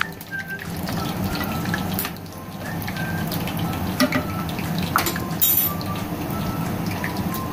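Whole dried red chillies and cumin seeds sizzling and crackling in hot oil in a frying pan, for a tempering. A metal spoon stirs them, with two sharp clicks against the pan about four and five seconds in.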